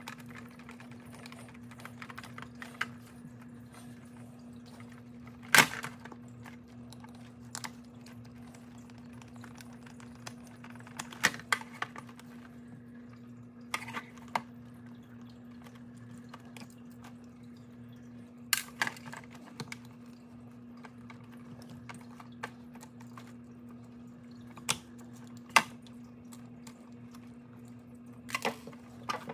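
Scattered clicks and taps of a screwdriver and hard plastic parts being handled while screws are driven into a Big Mouth Billy Bass singing fish's plastic body, over a steady low hum. The sharpest click comes about five and a half seconds in, with small clusters of taps around twelve, nineteen and twenty-eight seconds.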